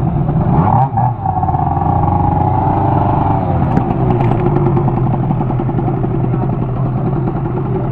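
Scooter engine running through an aftermarket exhaust. It revs up about a second in, holds the higher revs for a couple of seconds, then drops back to a steady run.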